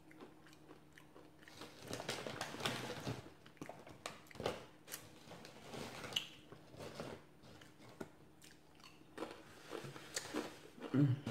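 Close-miked chewing with irregular crunches: a mouthful of tortilla chips being bitten and chewed.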